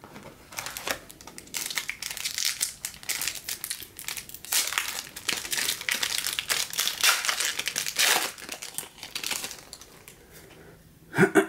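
A baseball card pack's wrapper being crinkled and torn open by hand: a long stretch of dense crinkling and crackling that dies down near the end.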